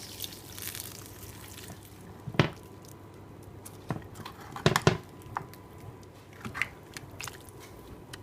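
Wet sloshing of vegetable stock over potatoes in a glass Pyrex dish, then a few sharp knocks against the dish, the loudest about two and a half and five seconds in.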